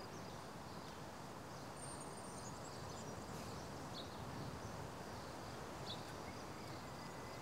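Quiet outdoor ambience: a steady faint background noise with a thin insect-like hum, and two brief faint chirps about four and six seconds in.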